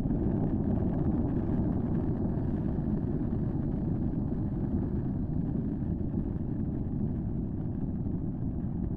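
Steady low rumble at an erupting fissure volcano with lava fountaining from its vents, even throughout with no distinct bangs or bursts.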